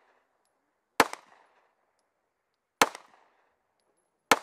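Three shots from a Zastava CZ999 Compact 9mm pistol, fired singly about a second and a half apart, each with a short echo.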